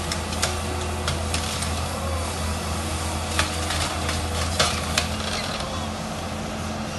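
Heavy-equipment diesel engines running steadily with a low drone, with a few short sharp clicks or knocks over it.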